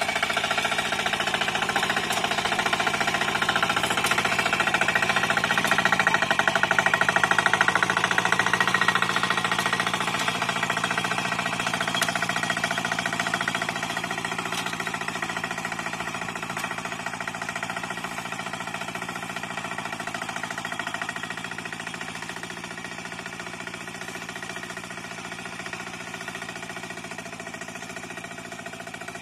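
Two-wheel hand tractor's single-cylinder diesel engine running steadily with a fast, even knock. It is loudest several seconds in, then fades as the tractor moves away.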